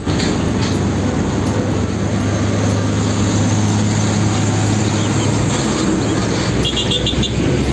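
Isuzu diesel fuel tanker truck driving past, a steady low engine drone under loud tyre and road noise.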